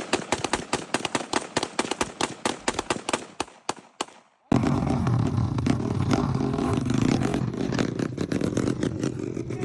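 A rapid, irregular string of sharp pops and cracks, many each second, thinning out and fading over about four seconds. Then, abruptly, a steady rough low rumble takes over.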